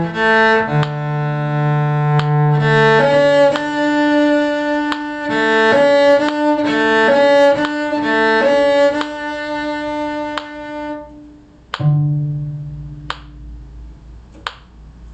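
Cello playing a slow melodic passage, sustained low notes under a moving upper line, which stops about eleven seconds in. Then one low note starts sharply and rings as it fades, followed by two short sharp clicks about a second and a half apart.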